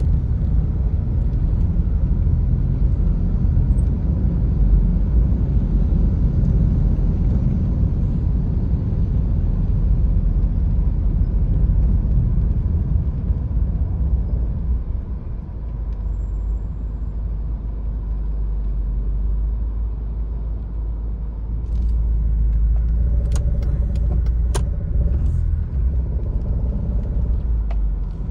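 Low, steady rumble of a car's engine and road noise heard inside the cabin, moving slowly in heavy traffic. A few faint clicks and a brief tone come near the end.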